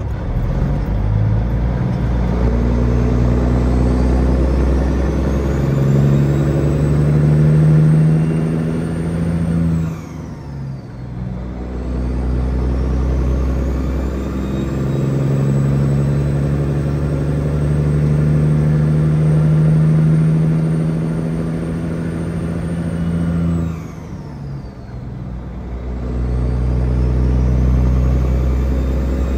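Peterbilt 379's diesel engine pulling under load as the truck works through the gears. A high turbo whine climbs as it builds, then falls away as the engine drops off at two gear changes, about ten and twenty-four seconds in, before building again.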